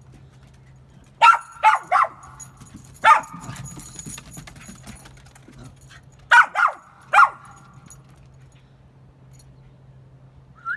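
A dog barking: three quick barks about a second in and one more a second later, then a second run of three barks around six to seven seconds in.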